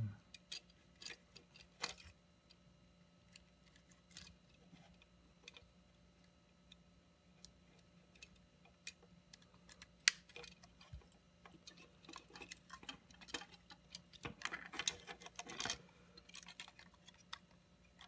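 Scattered small clicks and knocks of plastic parts being handled and fitted together while reassembling a Roomba 650 wheel module. There is one sharper click about ten seconds in, and a busier stretch of clicking near the end.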